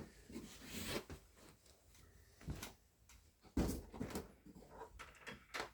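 Handling noise from a softbox light and its power lead: scattered knocks and clicks with some rustling, with a few sharper knocks in the second half.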